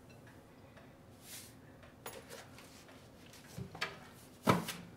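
Quiet handling of a kitchen container: a short soft hiss about a second in, a few light clicks, then a sharp knock near the end as the container is set back on a cabinet shelf.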